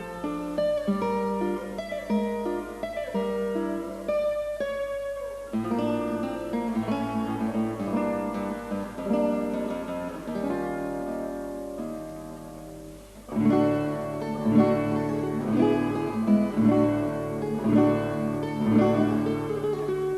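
Background music on acoustic guitar, a plucked melody over bass notes. It thins out briefly about two-thirds through, then comes back louder.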